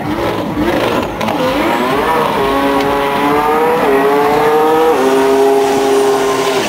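A drag car's engine accelerating hard down the strip, its pitch climbing and dropping back at each gear change, about three shifts, then holding steadier near the end.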